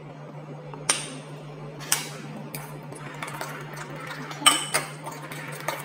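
Metal spoon clinking against a ceramic bowl while stirring mashed dates softened in hot water: several separate clinks, the loudest about four and a half seconds in, over a steady low hum.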